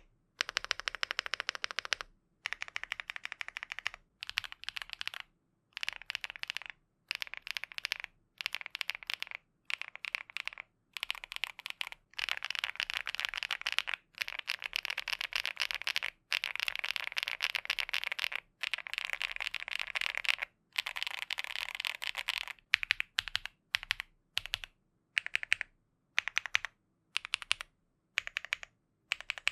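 Elec Fox INKY75 aluminum gasket-mount mechanical keyboard with INKY Matcha Buttermilk switches being typed on: quick runs of keystrokes broken by short pauses. Near the end the typing turns sparser, with separate, slightly louder key presses.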